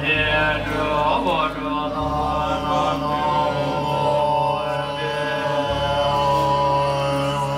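Tibetan Buddhist monks chanting the ritual liturgy together in long, held notes over a steady low drone.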